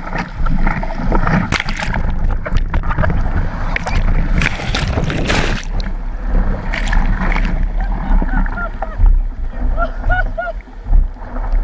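Breaking surf rushing and splashing over a surfboard and the camera on it, loudest about four to six seconds in. Short voices call out near the end.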